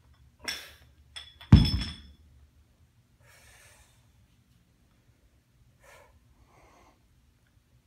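A 17 lb sledgehammer is set back down on a rubber gym floor: a couple of light knocks with a short metallic clink, then one heavy thud about a second and a half in, just after a short sharp breath. Faint breathing follows.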